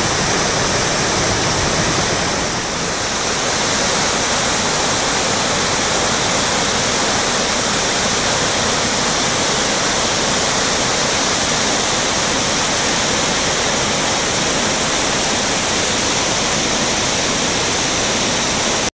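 Flood-swollen river running high and muddy over rocks and ledges, a steady rush of white water.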